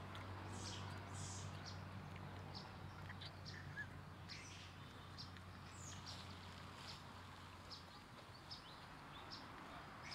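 Faint outdoor ambience: short, scattered high bird chirps over a low steady hum that dies away about eight seconds in.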